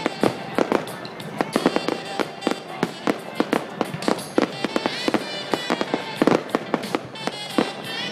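Aerial fireworks bursting in a rapid, irregular barrage of sharp bangs, several a second.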